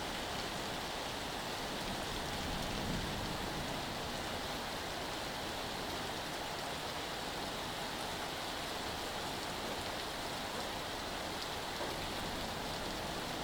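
Heavy rain pouring down steadily in a thunderstorm downpour, an even hiss without breaks.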